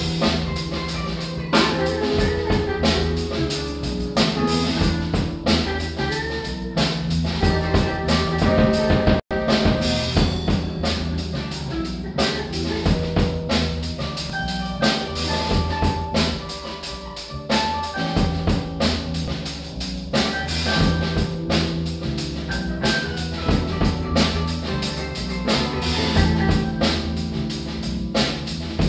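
A small band improvising together: a drum kit keeping a steady beat under keyboard and electric guitars. The sound drops out for a split second about nine seconds in.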